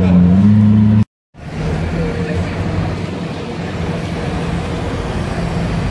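Lamborghini Aventador's V12 idling with a steady deep drone, cut off abruptly about a second in. After a brief gap, a quieter engine idles over steady street traffic noise.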